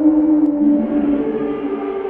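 Sea-monster sound effect: a droning moan of several held tones, the main one sliding slightly down and then stepping up in pitch about a second in.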